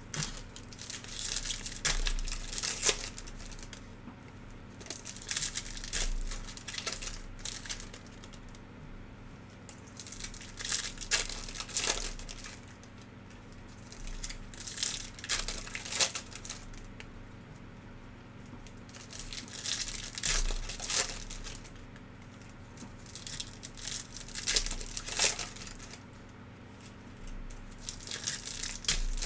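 Foil wrappers of Bowman's Best baseball card packs crinkling and tearing as the packs are ripped open by hand, in bursts of a second or two every few seconds.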